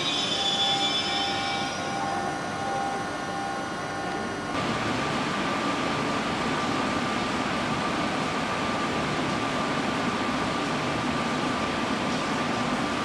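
Railway passenger coaches rolling slowly past, their wheels squealing on the rails. A little over four seconds in, the sound cuts to a steady hum of fans with a thin steady whine from electric trains standing at the platform, with a Renfe class 269 electric locomotive at the head.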